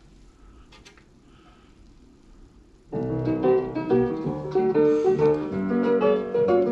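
A vinyl record playing on a turntable through a small portable speaker: instrumental piano music that comes in suddenly about three seconds in, after a few faint handling clicks.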